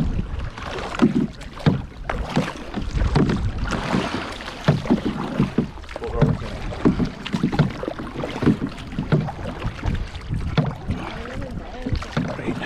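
Canoe paddles dipping and splashing in the water in irregular strokes, with wind buffeting the microphone.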